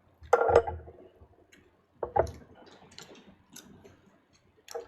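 A few scattered sharp clicks and taps at irregular intervals, the loudest near the start.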